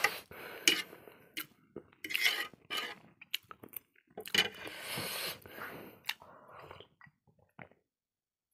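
Metal fork scraping and clinking on a ceramic plate, gathering up the last noodles, with chewing in between.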